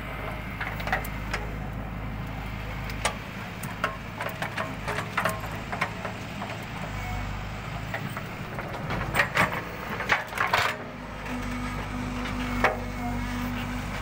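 Backhoe loader's diesel engine running steadily while its rear bucket digs into soil, with repeated knocks and clanks from the bucket and boom linkage, a quick cluster of them a little past the middle.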